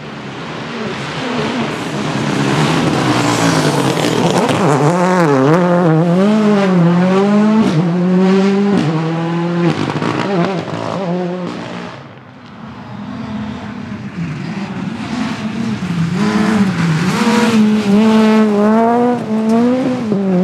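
Rally car engines at full throttle going by one after another, their pitch swinging up and down repeatedly. The first fades about twelve seconds in, and the next builds up loud toward the end.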